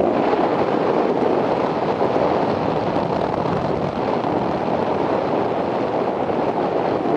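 Wind blowing across the camcorder's microphone while flying under a parasail: a loud, steady rush of noise with no breaks.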